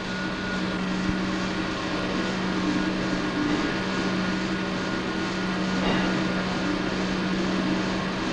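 Hoffmann dynamic balancing machine spinning a tail-rotor drive shaft element: a steady machine hum holding one constant low tone.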